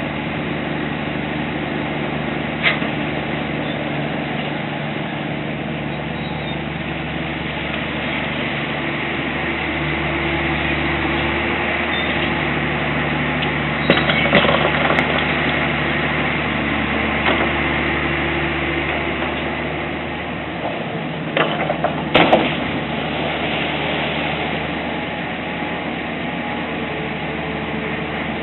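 An engine running steadily, with a few sharp clicks, the loudest about halfway through and again about three quarters of the way in.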